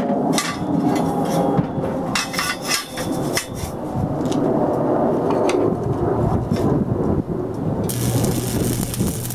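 Steel square tubing shifted and pressed into alignment, with scattered metal knocks and scrapes. About eight seconds in, a stick-welding arc (6013 rod at 100 amps) strikes and crackles steadily with a low hum as a joint is tacked.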